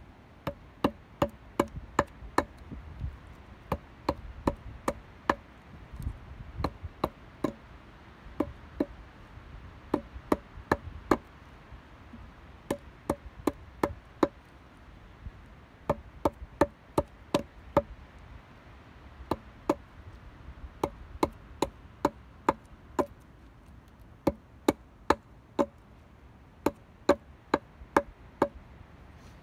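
Wood being chopped: sharp, hard blows about two a second, in runs of several strokes with short pauses between.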